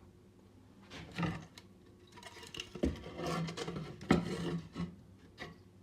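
Several knocks and scraping sounds as hard objects are handled and set down, the loudest knock about four seconds in.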